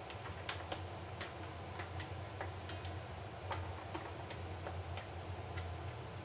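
Light, irregular clicks and taps as raw onion rings are laid one by one onto a stainless steel baking tray, over a steady low hum.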